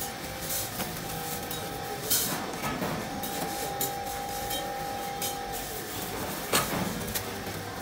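Metal cooking spoons and spatulas clinking and knocking, with plastic sleeves and cardboard boxes rustling as they are handled and packed, over a steady hum. A sharper knock comes about two seconds in and another near the end.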